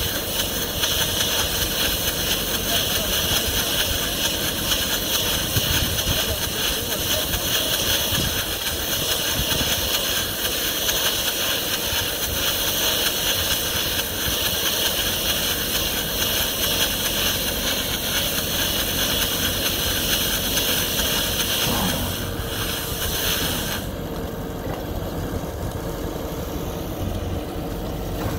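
Tractor engine running steadily as it drives a trailed round-bale wrapper turning a grass silage bale in stretch film. A steady high hiss from the wrapping runs over the engine and cuts off sharply near the end, when the wrapping stops.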